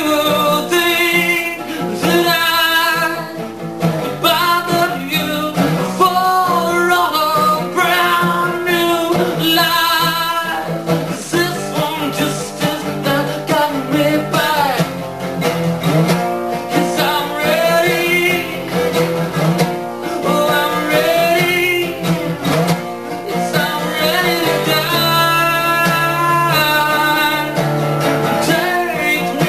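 Solo acoustic song: a voice singing over an acoustic guitar.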